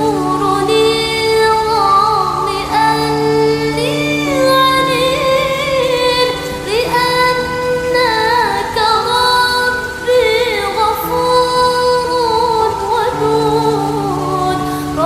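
Female voice singing a sholawat melody with winding ornaments, over a steady held low note underneath.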